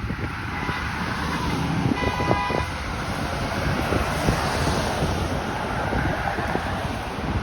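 Wind rushing on the microphone over a steady rumble of city traffic. About two seconds in comes a brief high-pitched tone with overtones, lasting under a second.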